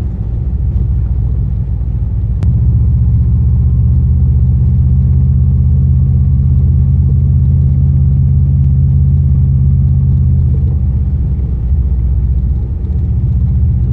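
Subaru car running at driving speed, a steady low engine and road drone. A sharp click comes about two and a half seconds in, after which the drone gets a little louder.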